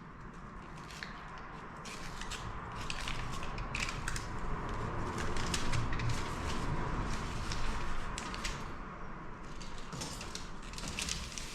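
Metal foil tape being peeled and pressed onto the back of plasterboard: steady crinkling and rustling with many small irregular crackles.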